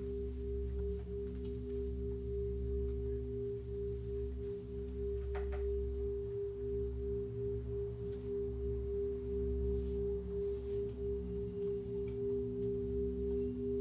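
A looped drone of several steady pitched tones, with a wavering pulse in the tones and a low hum underneath that swells and fades every few seconds. There is a small click about five and a half seconds in.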